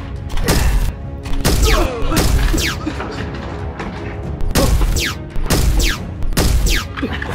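Gunshot sound effects in irregular bursts of rapid fire, each shot a sharp bang with a deep boom and a high whine falling in pitch like a ricochet, over background music.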